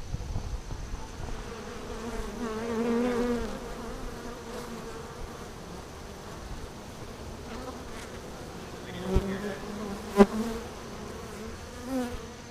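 Honeybees from an exposed wild colony buzzing, with individual bees droning past close by in swells. Two sharp taps come near the end, the second the loudest sound.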